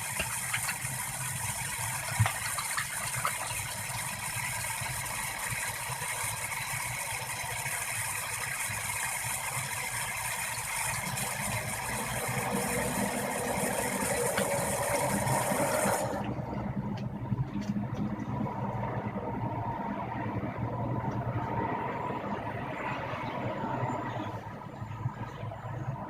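Tap water running into a sink as sticky slime is washed off hands; the water stops abruptly about two-thirds of the way through, leaving a lower, duller noise.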